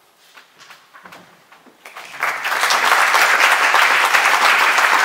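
Audience applause: a few scattered claps, then the whole audience breaks into loud, steady clapping about two seconds in.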